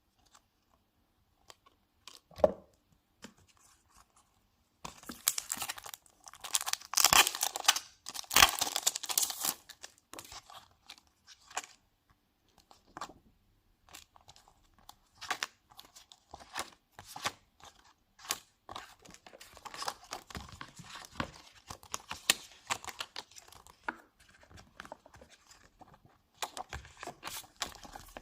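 Packaging of a Blu-ray box set being torn open and crinkled: a knock, then a loud stretch of tearing and crackling plastic or paper for about five seconds, followed by scattered clicks and rustles of handling.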